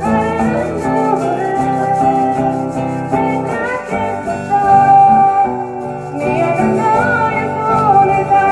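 A live band playing a song: guitar accompaniment under a lead melody of long held notes that bend in pitch.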